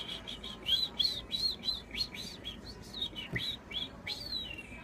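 A boy whistling a tune with his lips and tongue, no fingers: a quick run of short notes, then, about four seconds in, one long note that slides down in pitch and holds.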